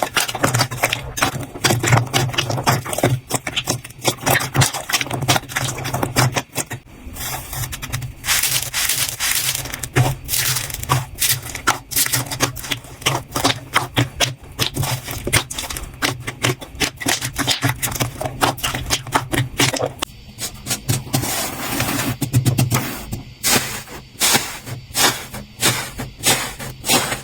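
Slime being squeezed and worked by hand, giving rapid, irregular crackling and popping clicks.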